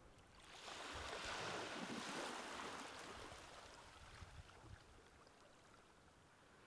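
A faint rushing noise that swells and fades over about two and a half seconds, like water or air rushing, then near silence.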